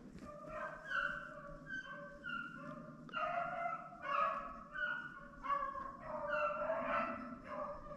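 Pack of rabbit-hunting hounds baying on a rabbit's trail: several dogs giving voice at once in overlapping drawn-out bawls, the sign of hounds running a hot track.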